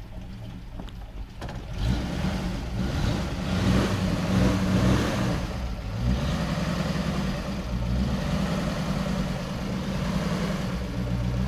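GAZ-66 army truck's V8 petrol engine running and revving as the truck drives off, getting louder about two seconds in, with the engine note rising and falling.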